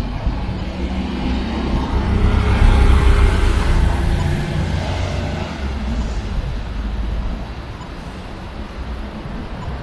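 City buses and cars passing through an intersection: a bus engine's low drone swells, loudest about three seconds in, then fades after about seven seconds into steady traffic noise.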